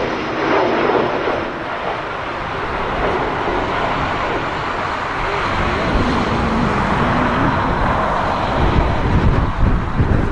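Jet airliner engines running as the aircraft approaches the runway: a steady, loud rush. From about halfway through, gusts of strong wind buffet the microphone in uneven low rumbles.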